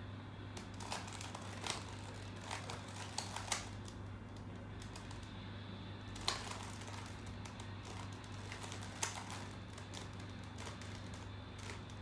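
A 3x3 Rubik's cube being turned by hand during a speed solve: irregular plastic clicks and clacks of the layers turning, with a few sharper snaps, one about halfway through, over a low steady hum.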